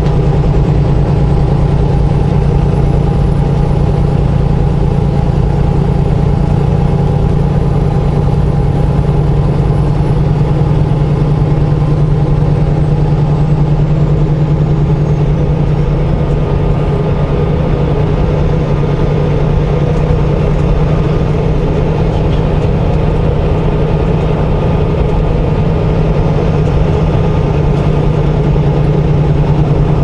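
Semi truck's diesel engine running steadily at highway cruising speed, heard from inside the cab as a constant low drone mixed with tyre and road noise.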